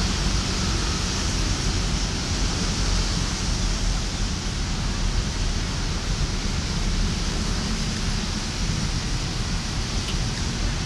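Steady rushing noise with a heavy, unsteady low rumble, from wind on the microphone and a distant approaching diesel-electric locomotive; no clear engine note, horn or wheel clatter stands out.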